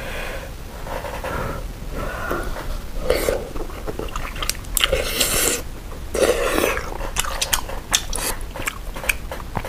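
A person eating malatang close to a clip-on microphone: several noisy slurps of wide glass noodles and spicy broth sipped from a spoon, with chewing and small mouth and utensil clicks in between.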